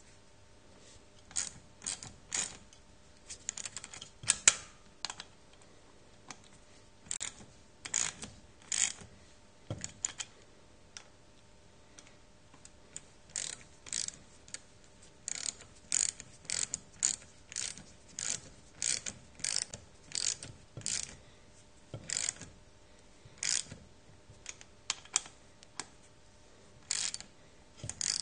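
Ratchet wrench clicking in short irregular runs while tightening the metal nuts of the hose fittings on a wine pump's brass ports.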